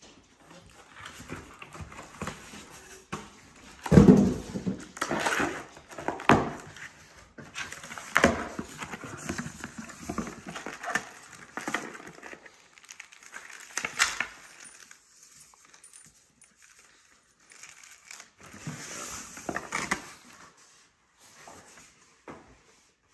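Cardboard boxes and packing materials being handled during an unboxing: irregular rustling, scraping and knocks, the loudest a thump about four seconds in.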